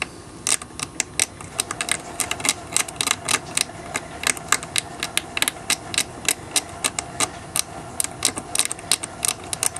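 Hobby knife blade scraping and picking static grass away from the edge of model railroad track ballast: an irregular run of small scratchy clicks, several a second.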